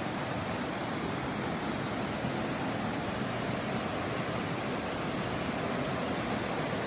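Mountain river in a gorge flowing steadily, an even, unbroken water noise.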